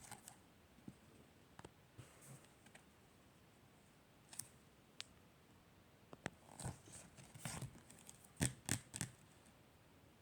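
Paper and stickers being handled: scattered small clicks, taps and scratchy rustles, sparse at first, then busier and louder over the last few seconds.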